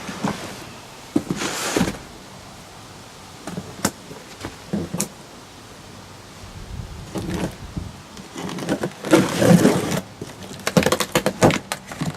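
Cardboard box and packing material being handled and opened: rustling and scraping with scattered knocks, busiest near the end.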